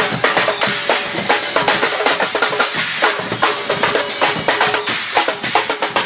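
A carnival Guggenmusik drum line of several drum kits playing together: a fast rhythm of snare hits, rimshots, bass drum and cymbals.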